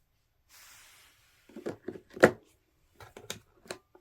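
Hard plastic parts of a Vacmaster canister vacuum being handled and fitted together: a soft rustle, then a run of knocks with one loud sharp knock about two seconds in, then a few lighter clicks near the end.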